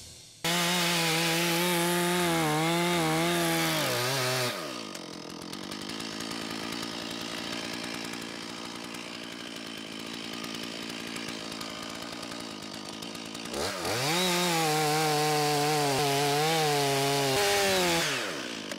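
Stihl chainsaw cutting through an old pine log at full throttle, its pitch wavering under load. About four and a half seconds in it falls back to idle, then revs up again at about fourteen seconds for another cut and winds down near the end.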